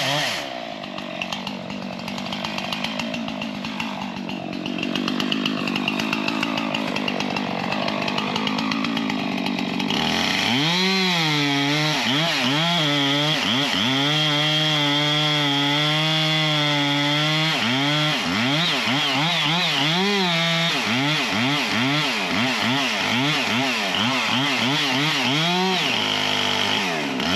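Chainsaw cutting into a tree: softer and uneven for the first ten seconds or so, then running at full throttle, its pitch dipping and recovering again and again as it works in the cut.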